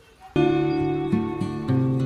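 Acoustic guitar music starting suddenly about a third of a second in: strummed and plucked chords with a steady bass line.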